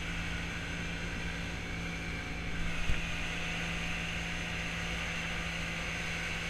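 Yamaha 50 hp outboard motor running steadily at speed, one unchanging engine hum under the rush and hiss of the boat's churning wake.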